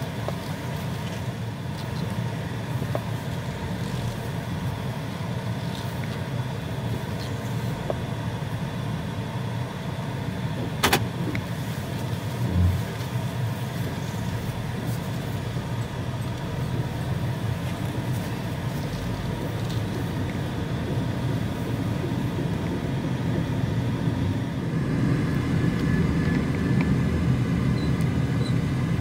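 Car running and driving, heard from inside the cabin: a steady engine and road rumble that grows louder near the end. A single sharp click comes about eleven seconds in, and a short low thud follows a moment later.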